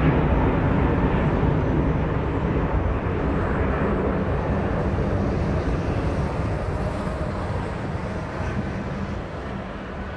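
Boeing 747-400 freighter's four jet engines during the climb after takeoff: a deep, steady rumble that fades evenly as the aircraft pulls away.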